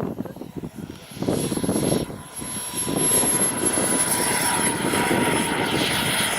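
JetsMunt VT80 model turbojet whining in flight: a steady high-pitched whistle over a jet rush that grows louder through the second half as the model comes closer. Gusts of wind buffet the microphone in the first couple of seconds.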